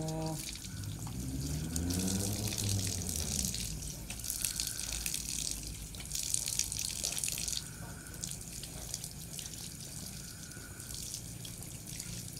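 Water running from an outdoor wall tap and splashing as a man washes his face and hands for ablution (wudu), with irregular louder splashes.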